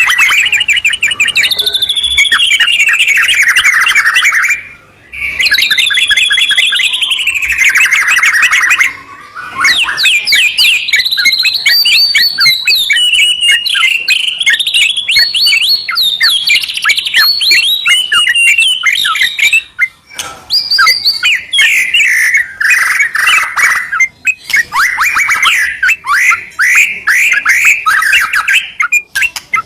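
White-rumped shama and yellow-vented bulbul singing loud, continuous song: fast trills and rapid runs of falling notes, pausing only briefly a few times.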